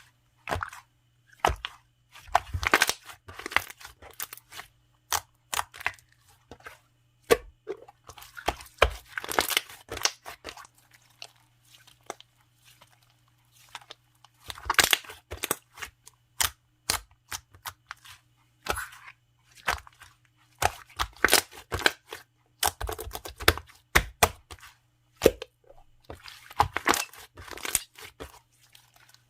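Hands pressing, squishing and stretching a chocolate jiggly slime, giving irregular runs of sharp little clicks and sticky crackles with short pauses between handfuls.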